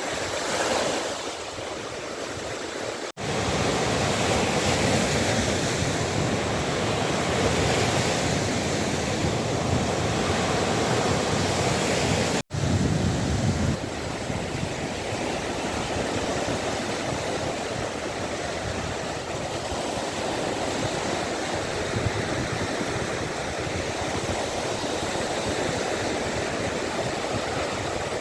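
Waves on the Gulf of Finland washing onto the shore, a steady rushing noise, broken by two abrupt cuts about three seconds in and about twelve seconds in.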